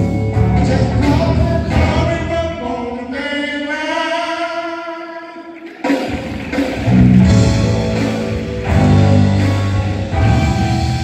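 A singer performing a song with musical accompaniment. Near the middle the low accompaniment falls away under one long held note, then the full accompaniment comes back in strongly about six seconds in.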